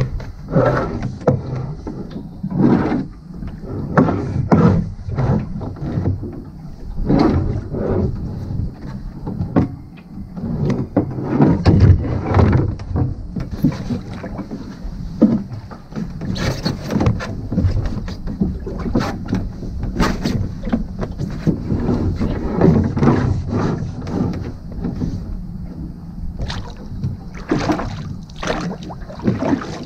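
Wooden oars rowing a small open boat: repeated strokes, with the oars splashing and pulling through the water and knocking in their rowlocks.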